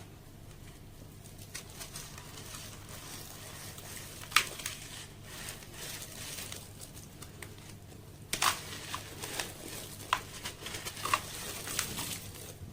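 Sand-cement slabs crumbling in water, with steady crackling and scattered sharp crunches. There is one loud crunch about four seconds in, and the crunches come thicker from about eight seconds on.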